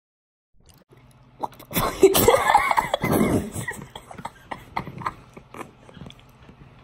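A girl making loud, rough vocal noises, cough-like rather than speech, right up against the microphone for about two seconds, starting after a short silence. Quieter scattered clicks and knocks follow.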